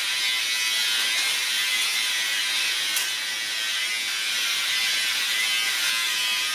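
Electric hair clippers buzzing steadily as they cut a child's hair, with a short click about three seconds in.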